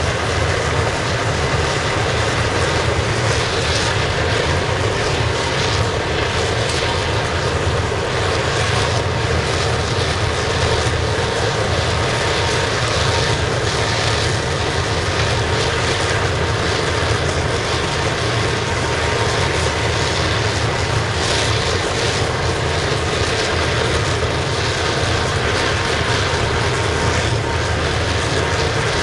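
Waste-oil burner firing a scrapping furnace: the steady noise of the oil flame and its electric air blower, with the blower's air inlet all the way open, running evenly and burning well.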